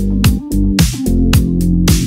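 Background electronic music with a steady drum beat, about two beats a second, over held synth notes.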